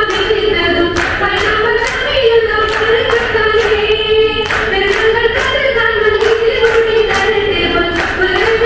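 Women's voices singing a Malayalam group-dance song over steady rhythmic hand clapping, about two claps a second.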